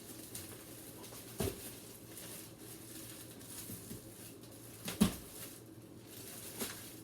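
A serving utensil knocking against the crock pot, twice sharply, about a second and a half in and again about five seconds in, with a lighter knock near the end, over quiet kitchen room tone.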